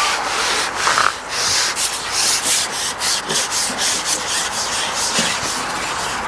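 A steady rustling, rubbing hiss that swells and fades in short surges.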